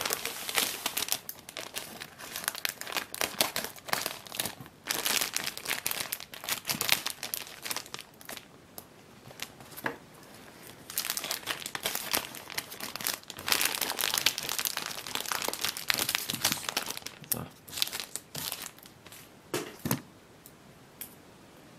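Plastic wrapping of a trading-card starter pack crinkling as it is handled and cut open with scissors, in irregular bursts. It eases off for a few seconds about halfway, crinkles again, and ends in a few scattered small clicks.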